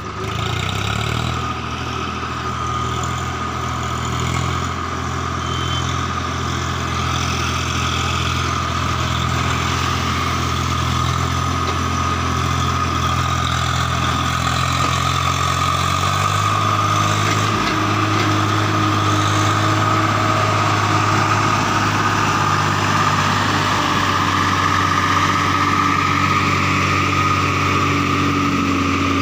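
Swaraj tractor's diesel engine labouring steadily as it hauls an overloaded sugarcane trolley, a load heavy enough to lift the tractor's front wheels off the road; a steady high whine runs above the engine note, which shifts in pitch about halfway through.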